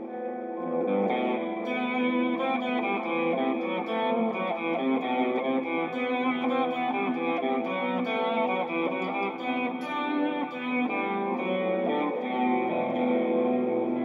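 Electric guitar played through an Eagle P412 speaker cabinet: a continuous run of picked notes and chords, with many short pick attacks, letting the cabinet's tone be heard.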